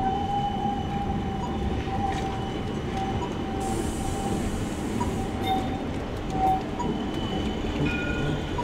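CAF Urbos 3 light rail tram rolling past through a street curve, with a steady high whine over a low rumble and a short hiss about four seconds in.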